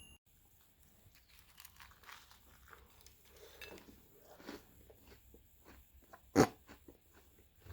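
A person biting into and chewing a glazed donut filled with unmelted chocolate pieces: faint crunching and mouth sounds, with one sharp click about six and a half seconds in.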